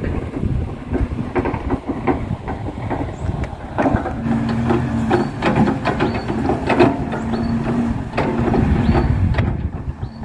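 Crawler excavator's diesel engine running at a distance, a steady hum that comes up about four seconds in, under a rough low rumble of wind on the microphone and scattered knocks.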